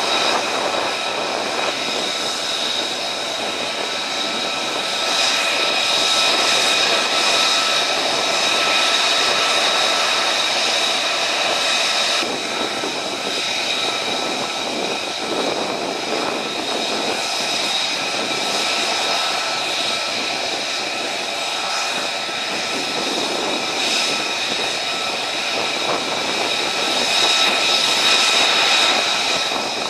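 F-35 fighter jets taxiing in close formation, their jet engines running with a steady high-pitched whine over a continuous rush of engine noise, a little louder near the end.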